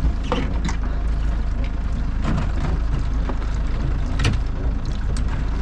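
Steady low rumble of a small fishing boat's engine, with a few sharp knocks and clatters from handling gear on deck.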